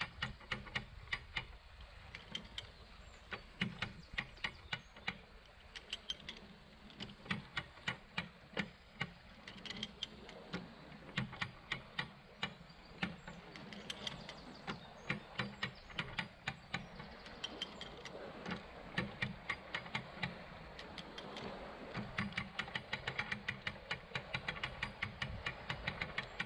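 Canal lock paddle gear being wound with a ratchet windlass, giving runs of sharp metallic clicks several a second from the ratchet and pawl, with short pauses between runs.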